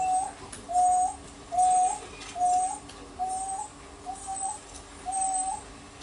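African wild dog whining at a kill: short, high, slightly rising calls repeated about once a second, around eight in a row.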